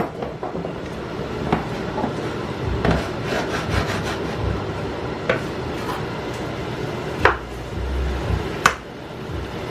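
A cooking utensil knocking and scraping in a frying pan on the stove: about five sharp clicks over a steady low background, the loudest two near the end.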